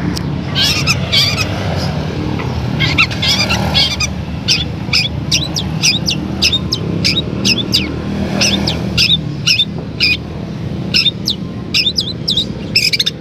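Long-tailed shrike (cendet) singing: a rapid run of short, sharp chirps in quick groups, some sliding down in pitch.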